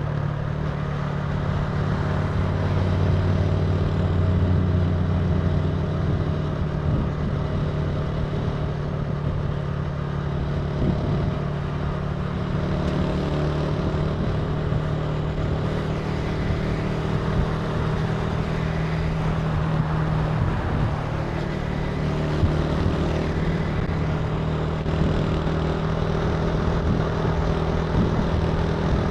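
Italika TC300 motorcycle engine running at a steady, nearly constant speed while riding, with a continuous rushing noise over it.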